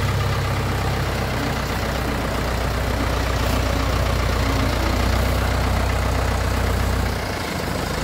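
Someca 715 tractor's diesel engine running steadily at idle with a deep, even hum; about seven seconds in the deepest part of the hum drops away and the engine sounds a little quieter.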